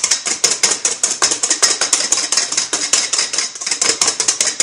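Wire whisk beaten fast against a stainless steel bowl, whipping egg whites: a rapid, even clatter of metal strokes, several a second. The whites are almost at the soft peak stage.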